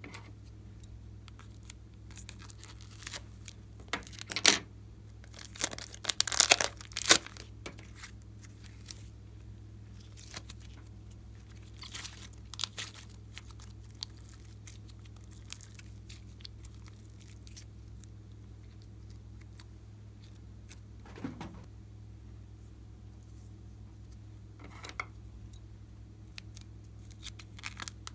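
Slime being squeezed, stretched and poked by hand, giving irregular sticky crackles and pops in scattered clusters, with the loudest run about four to seven seconds in. A steady low hum runs underneath.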